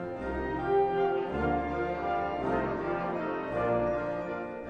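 Orchestral background music with brass, in held notes that change every second or so.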